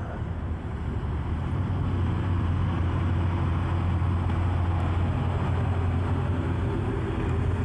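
Heavy diesel engine of a large earthmoving machine running steadily under load, a deep even drone.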